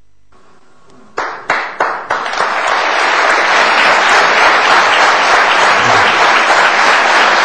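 Studio audience applauding: a few separate claps about a second in, which quickly build into steady applause from a large crowd.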